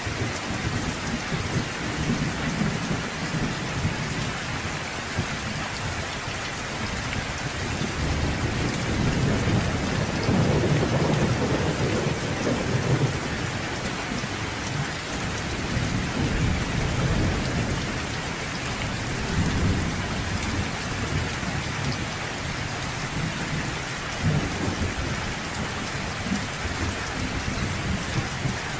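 Steady rain falling on a surface, with rolling thunder rumbling underneath in several long swells, the loudest about a third of the way in.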